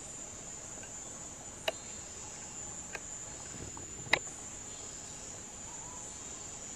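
Insects in the forest giving a steady, high-pitched continuous drone, with three sharp clicks about a second apart, the loudest about four seconds in.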